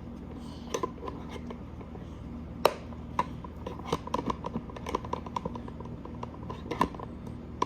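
Hands handling plastic Play-doh toy pieces: scattered small clicks and taps, with a sharper click about two and a half seconds in and another near the end.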